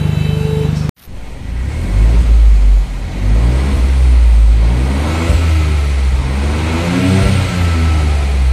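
Proton X50's turbocharged 1.5-litre three-cylinder engine, breathing through an aftermarket X Power full-system valvetronic exhaust, idling steadily for about a second. After a break it is revved in park several times, rising and falling between roughly 2,000 and 3,500 rpm, with the highest rev near the end.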